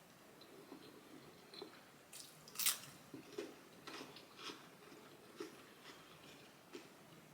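Close-miked chewing and wet mouth sounds of someone eating, with scattered small clicks and a sharper bite about two and a half seconds in.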